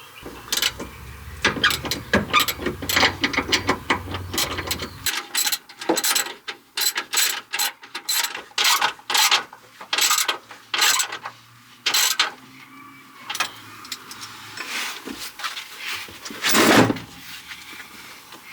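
Ratchet wrench clicking in quick runs as a loose seatbelt anchor bolt is driven in and tightened.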